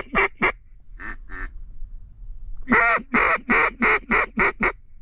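Mallard duck call blown in fast runs of raspy quacks: a couple just after the start, two softer ones about a second in, then a loud run of about eight.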